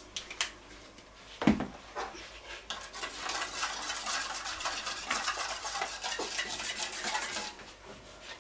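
A small spoon stirring and scraping around a stainless steel mixing bowl, a quick dense run of clinks and scrapes lasting about four seconds, after a single sharp knock about a second and a half in.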